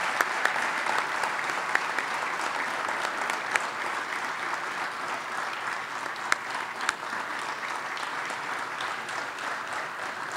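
An audience applauding steadily, a dense patter of hand claps with single sharper claps standing out, easing off a little near the end.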